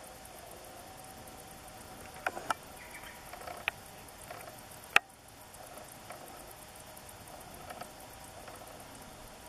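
Faint insects chirring steadily, broken by a few sharp clicks, the loudest about five seconds in.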